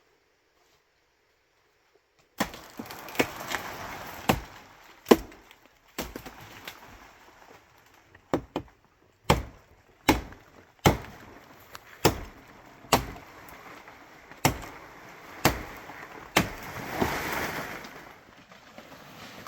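Bamboo being chopped or struck with a tool: sharp, irregular knocks about once a second, starting a couple of seconds in, with a longer rasping crack near the end.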